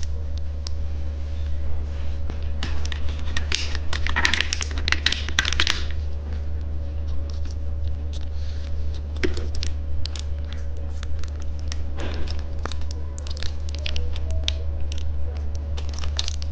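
Crinkly plastic candy packaging being handled and torn open, with irregular crackles and rustles that bunch up in several spells, over a steady low hum.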